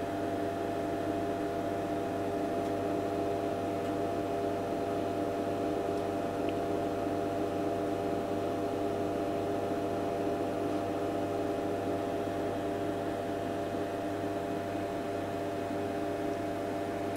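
Steady mains hum from running bench electronics: a low hum with several higher steady tones above it over a light hiss.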